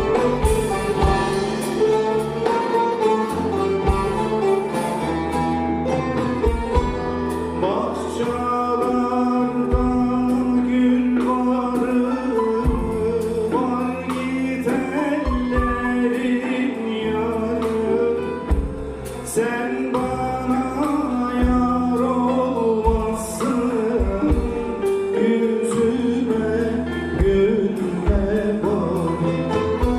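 Live Turkish folk song: singing over instrumental accompaniment with a steady bass line.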